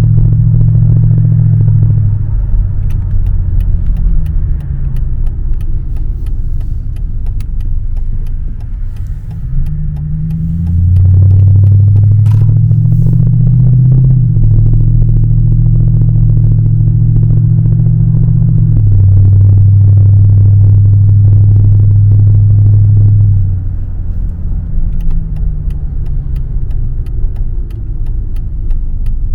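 Mercedes W220's V8 engine and exhaust running. About ten seconds in the revs climb and the note gets louder. It then holds, stepping down in pitch twice, and falls back to a quieter, lower running note for the last few seconds.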